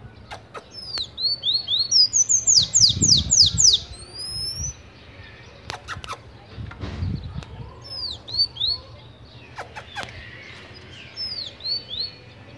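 Caged sanhaço tanager singing: phrases of quick, high, squeaky notes, the loudest and fastest run about two seconds in, with shorter phrases later. A few sharp clicks and low thumps come in between.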